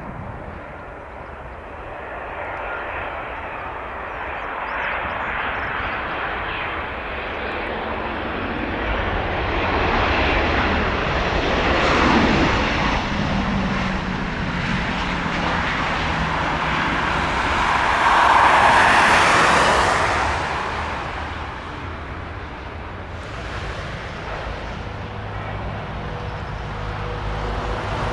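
Boeing 737 jet engines during landing: the engine noise grows as the airliner comes over the runway and touches down, then rises to a loud rush of reverse thrust about two-thirds of the way through and dies away as it slows. Near the end a second jet, an Airbus A321 on approach, takes over with a steady engine whine.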